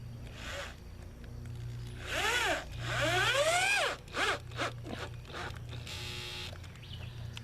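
Power driver with a Torx bit driving a screw into wood: two trigger runs in which the motor speeds up and winds down, about two and three seconds in, then a few short blips near the end of the screw.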